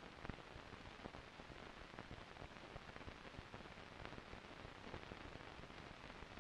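Faint steady hiss peppered with small crackles and pops: the surface noise of an old film soundtrack with no narration or music on it.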